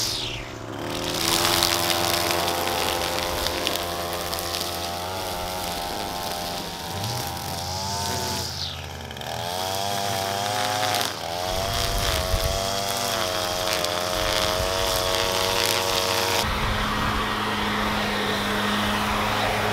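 String trimmer engine running while edging a lawn, its pitch rising and falling. About three quarters of the way through it gives way to a backpack leaf blower running at a steady pitch.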